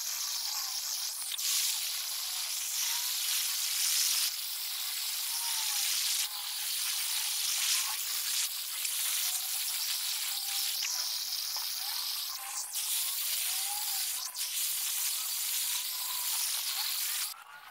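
Handheld gas-cartridge blowtorch hissing steadily as its flame is played over carved wood. The hiss jumps in level a few times and cuts off shortly before the end.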